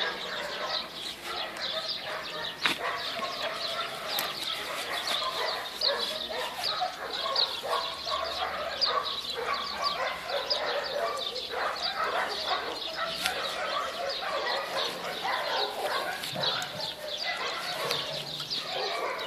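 A continuous busy chorus of short animal calls, many overlapping chirps and yaps.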